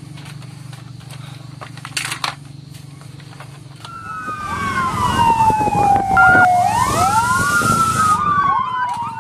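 Light plastic clicks and knocks from a toy fire truck and its ladder being handled. About four seconds in, a real fire engine's siren starts, wailing slowly down in pitch, then sweeping back up and falling again, with more overlapping siren sweeps and a hiss of street noise.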